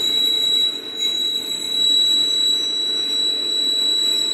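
Lathe cutting tool working a spinning phosphor bronze (B101) tube, giving off a steady high-pitched squeal over the lathe's running and cutting noise.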